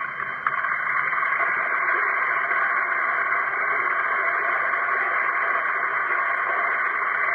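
Large crowd applauding and cheering, a dense steady roar that swells about half a second in, heard through an old band-limited recording.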